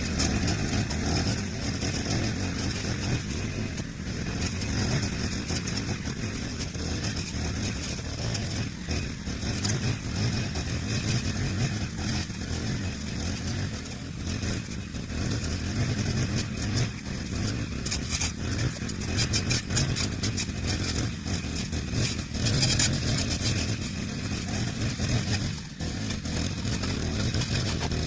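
Brush cutter fitted with a chainsaw-chain cutting head, its small engine running continuously, the loudness rising and falling throughout.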